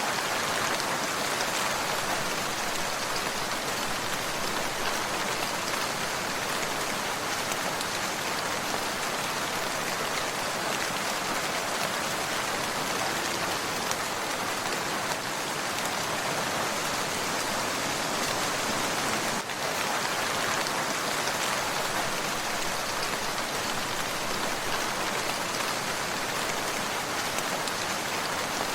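Steady rain falling, a dense even hiss of drops on surfaces, with a brief dip about two-thirds of the way through.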